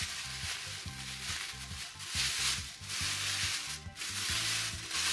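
Thin plastic bag crinkling and rustling as it is untied and pulled open, swelling several times in the second half, over background music with a steady bass line.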